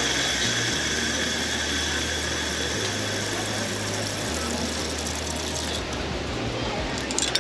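Zip-line trolley pulleys running along a steel cable: a steady whirring hiss with a faint whine, and a few clicks near the end.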